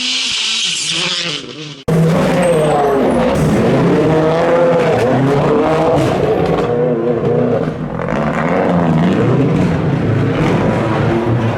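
World Rally Car's turbocharged four-cylinder engine revving hard on a stage, its pitch climbing and dropping repeatedly through gear changes and lifts. It opens with a short stretch of hissing noise that fades before an abrupt cut about two seconds in.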